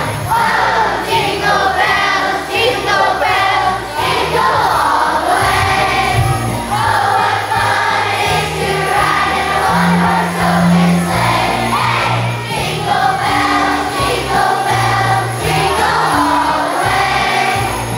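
A children's choir singing a song together, with an instrumental accompaniment whose low bass notes change every second or so.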